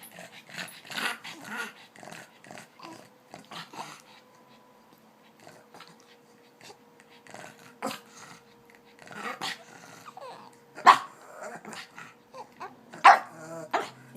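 Two-week-old newborn grunting and squeaking in short, irregular bursts, with two louder squeals about eleven and thirteen seconds in.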